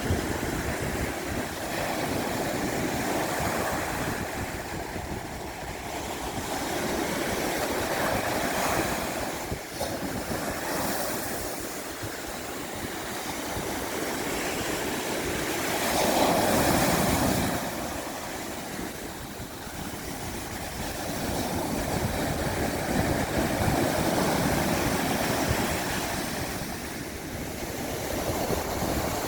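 Sea waves breaking and washing up a beach, the surf swelling and easing in slow surges, with one louder wave about two-thirds of the way through.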